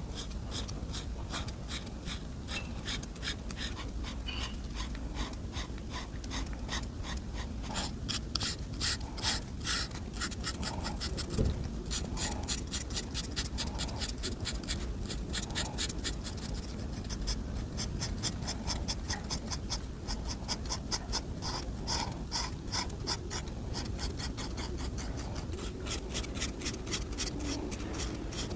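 A coloring tool scratching back and forth across paper in quick, even strokes, a few a second, with a soft knock about a third of the way in.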